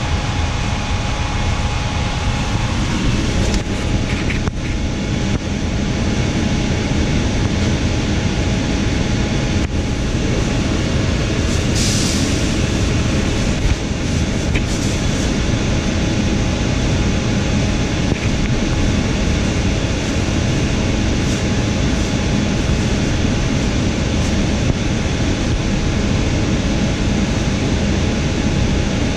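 Steady hum and rumble inside a JFK AirTrain car, with a faint steady whine above it. There is a short hiss about twelve seconds in.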